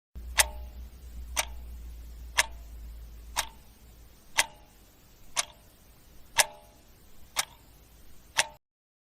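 Clock ticking: nine sharp, even ticks about one a second, over a faint low hum that fades away.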